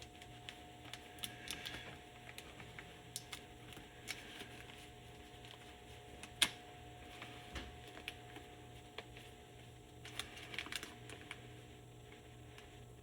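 Light, scattered clicks and taps of small parts being handled, with one sharper click about six and a half seconds in and a quick flurry of clicks near the end, over a steady low hum.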